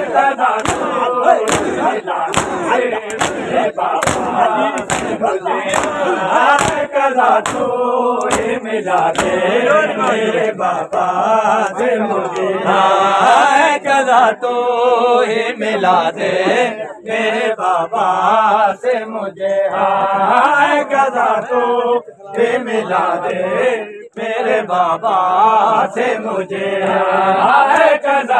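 A crowd of men chanting a mourning noha together, with rhythmic slaps of hands beating on bare chests in matam, most clearly in the first several seconds.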